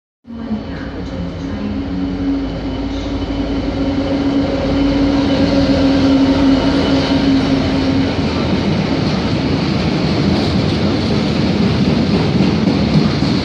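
Diesel freight locomotive running through, its engine giving a steady drone as it passes. From about eight seconds in, the loaded wagons take over, rumbling and clattering over the rails.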